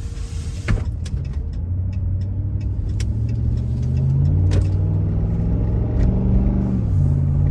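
A 2010 Ram 1500's 5.7 L Hemi V8 accelerating smoothly, heard inside the cab. The engine note climbs steadily and grows louder for several seconds, then drops suddenly near the end as the transmission shifts up, and carries on steady.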